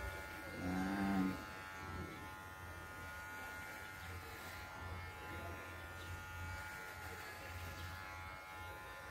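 Electric hair clipper buzzing steadily as it cuts short hair, with a brief voice heard about a second in.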